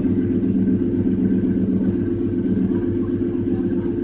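Lincoln Town Car's 4.6-litre V8 idling steadily, a low even hum with no revving.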